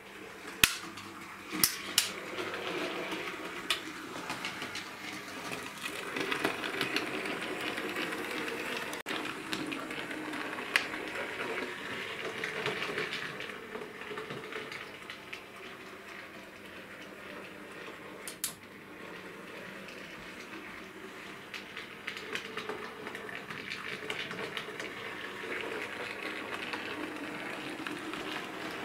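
Bachmann OO gauge Class 56XX model tank engine running over the track and pointwork, its small motor and gears whirring and its wheels clicking over rail joints and points. The sound swells and fades as the loco comes nearer and goes away, with a few sharp clicks near the start and one more about two-thirds of the way through.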